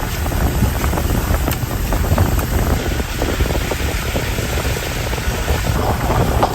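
Storm wind buffeting the microphone in a steady low rumble, over a rushing hiss with many small irregular crackles.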